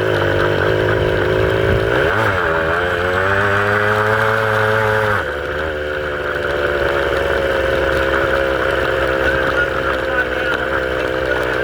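Motorbike engine running while riding. Its note dips and climbs again about two seconds in, then changes pitch and drops slightly in level about five seconds in.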